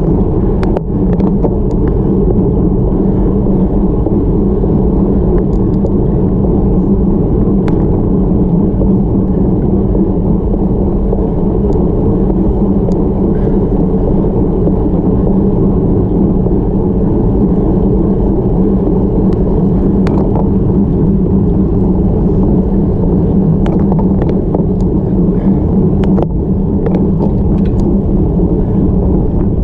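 Steady wind rumble on the microphone of a bike-mounted action camera as a road bike climbs at about 20 km/h, with a few faint ticks scattered through it.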